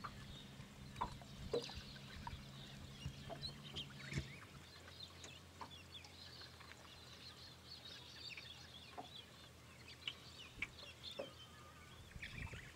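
Faint bird calls: scattered short chirps and calls throughout, over a steady low hum whose pitch drops about four seconds in.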